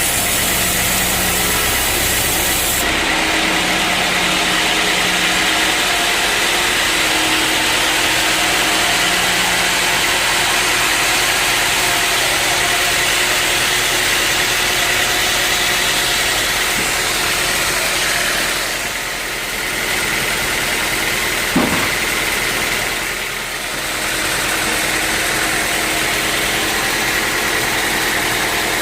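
Sawmill machinery running steadily while sawing teak logs. The sound shifts about three seconds in, dips briefly twice later on, and a single sharp knock falls between the dips.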